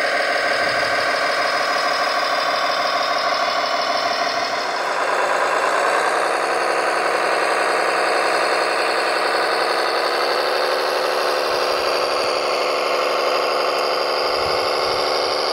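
Radio-controlled construction machine running with a steady mechanical whine, shifting in pitch about five seconds in and again near ten seconds in.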